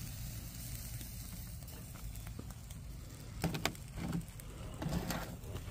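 A few sharp metal knocks and clinks a little past halfway, from a camp pot being handled off a small wood-burning stove made from a stainless-steel utensil holder, over a steady low rumble from the twig fire.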